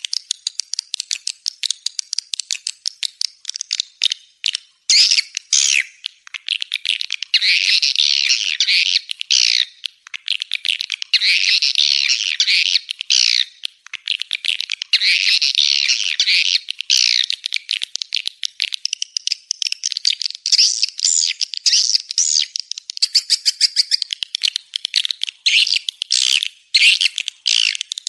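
Swiftlet calls: rapid trains of short, sharp chirping clicks, broken every few seconds by louder chattering trills, all high-pitched. This is a swiftlet courtship ('birahi') call track of the kind played to lure swiftlets into a nesting house.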